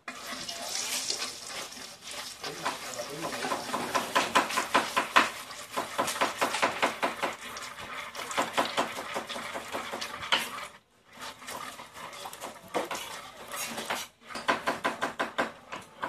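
Wooden chopsticks stirring and scraping in a metal wok, fast clicking strokes over a light sizzle, as sugar caramelizes in a little hot oil. The stirring breaks off briefly twice near the end.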